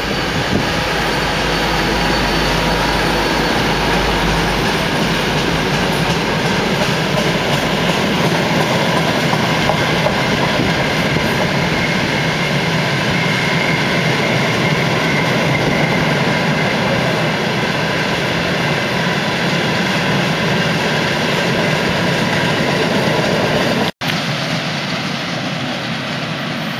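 Diesel-hauled freight work train passing close by: the locomotives' deep engine rumble fades over the first several seconds as they move off, then the wheels of the loaded freight wagons roll by steadily. About 24 s in, the sound cuts out for an instant and resumes a little quieter.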